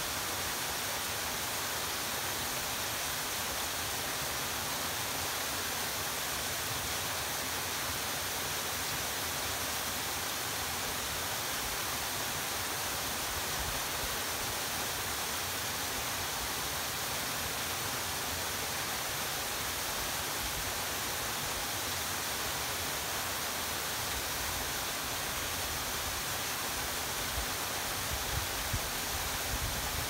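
Waterfall pouring steadily down a rock face into a pool, a constant even rush of water. Near the end a few low rumbles of wind buffet the microphone.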